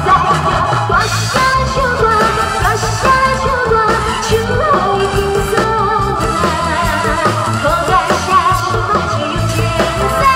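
A woman singing a pop song into a microphone over amplified stage music, her voice and the accompaniment coming through a PA system.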